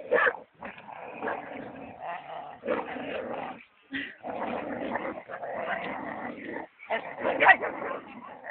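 Dogs, among them a Belgian Malinois and a husky-type dog, fighting: continuous growling and snarling with barely a break. It is loudest at the very start and again about seven and a half seconds in.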